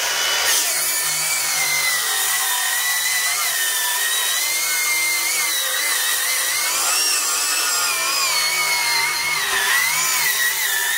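Craftsman V20 brushless cordless 7-1/4-inch circular saw ripping along the grain through thick lumber: a steady, high motor and blade whine that wavers in pitch as the blade loads, dipping briefly near the end. The saw keeps its power and pushes through the cut without stalling.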